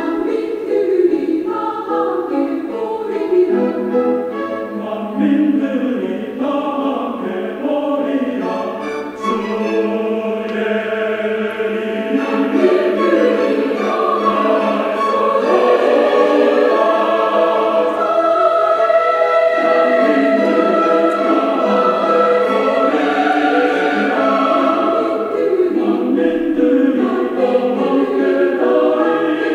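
Background music: a choir singing, with long held chords.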